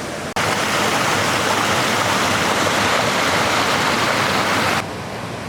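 Mountain stream rushing steadily over rock, cutting in suddenly about a third of a second in and cutting off sharply near the end, leaving a quieter water sound.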